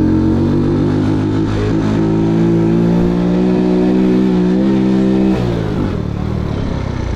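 Mondial SFC 50 moped engine running under way at a steady pitch, then falling about five seconds in as the throttle is closed and the revs drop.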